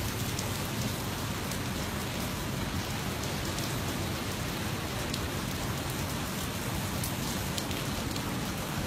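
Steady rain falling, a constant hiss with scattered sharp drop ticks.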